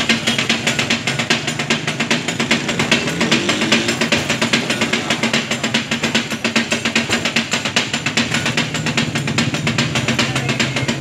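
Two flat metal spatulas striking a large iron griddle in a fast, steady rhythm, several clacks a second, as brains are chopped and fried for taka tak.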